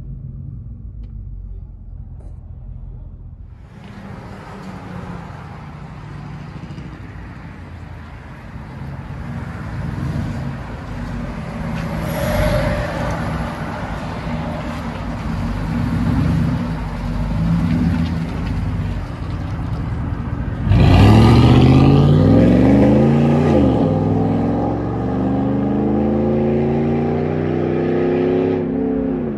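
2012 Ford F-150's 5.0L Coyote V8 through a straight-piped dual exhaust (Y-pipe into dual tailpipes): idling at first, then about 21 s in it revs and accelerates loudly, its pitch climbing and dropping several times.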